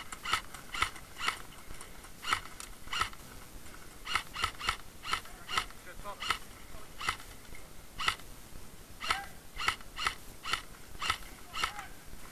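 Airsoft guns firing single shots: a steady string of short, sharp pops at uneven spacing, about two or three a second.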